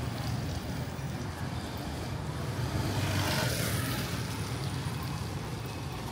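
Motor scooters passing on a wet road: tyre hiss and engine noise swell and fade about three to four seconds in, over a steady low traffic rumble.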